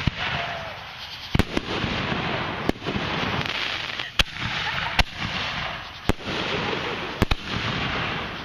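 Consumer fireworks going off: sharp bangs roughly once a second, some in quick pairs, over a continuous hissing crackle.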